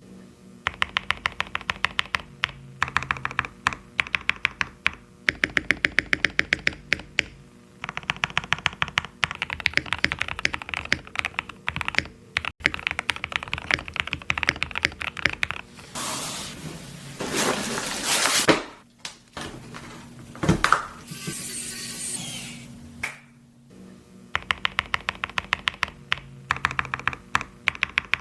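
Typing on a mechanical keyboard fitted with KTT Strawberry linear switches: fast runs of key clacks in bursts of a few seconds each. About two-thirds of the way through, the clacks give way to a few seconds of hiss-like noise and one low thump, then typing resumes near the end.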